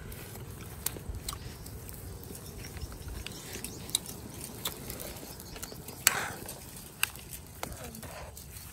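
A metal spoon clinking and scraping against a steel wok of simmering soup while stirring: a scatter of sharp clicks, the loudest about six seconds in, over a low steady background.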